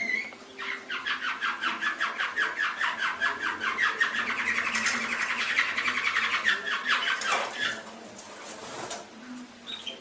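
Domestic canary singing a long rapid roll of evenly repeated notes for about seven seconds, then a short separate call near the end.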